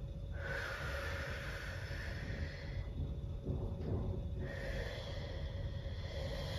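A woman's slow, deep breathing while she holds a standing forward-fold stretch to cool down: two long breaths, each lasting about two seconds.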